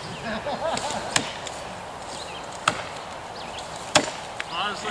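Axe chopping into a sycamore trunk to open up the felling notch: three sharp strikes, roughly a second and a half apart.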